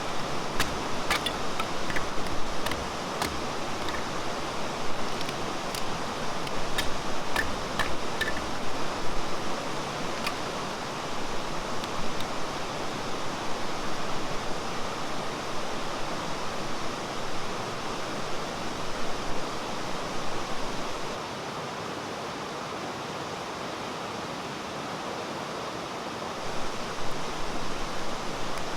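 Mountain stream rushing steadily over rocks, with a few sharp light clicks in the first ten seconds.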